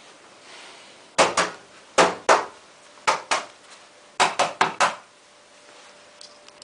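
Sharp metallic knocks with a short ring after each: about ten strikes, in three pairs and then a quick run of four.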